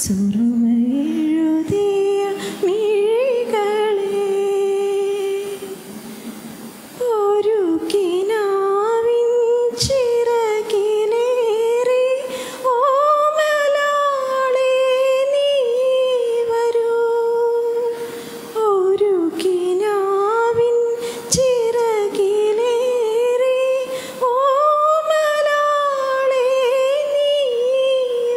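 A woman singing a song unaccompanied into a handheld microphone, in long held notes with ornamented turns, pausing briefly between phrases.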